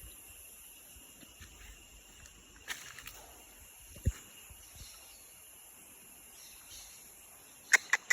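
Quiet outdoor ambience with a steady high-pitched drone, and a few sharp clicks, three in quick succession near the end.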